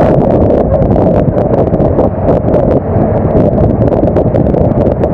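Storm wind buffeting the microphone on the open deck of a longline fishing boat: a loud, steady, rough rumble with scattered sharp ticks.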